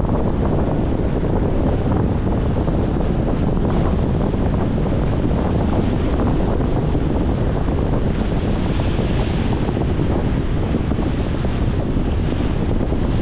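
Strong wind buffeting the microphone in a steady low rumble, over choppy water washing and splashing against a concrete shore wall. There is a louder splash about nine seconds in and another near the end.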